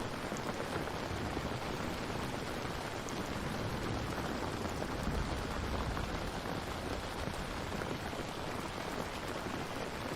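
Steady rain falling, an even hiss of drops with a low rumble that swells briefly around the middle.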